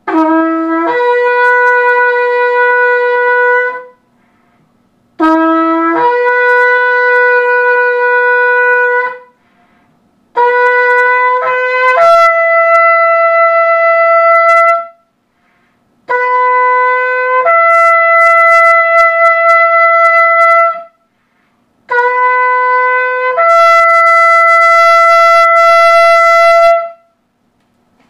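Shofar blown in five long blasts. Each blast starts on a short lower note and jumps up to a held higher note, and the last three blasts sit higher than the first two.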